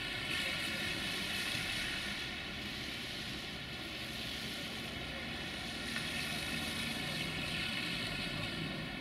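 Steady rush of road traffic: cars driving along a wet, snowy street, tyres and engines blending into a continuous noise.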